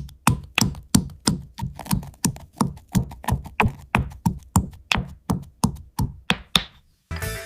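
A rapid, even series of sharp knocks, about three a second, each with a short low thud, stopping abruptly about seven seconds in.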